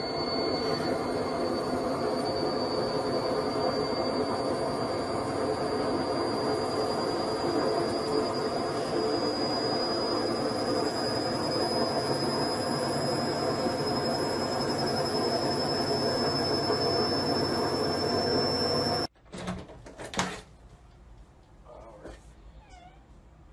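Candy front-loading washing machine on a spin cycle: a loud steady whir and rumble with a high whine that creeps slowly up in pitch. It cuts off suddenly about 19 seconds in, leaving a much quieter room.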